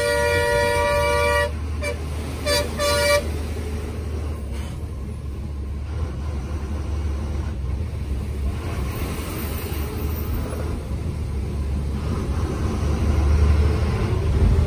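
Bus horn held, cutting off about a second and a half in, then two short toots while overtaking a truck. After that the bus's engine and road noise run steadily inside the cabin, growing louder near the end.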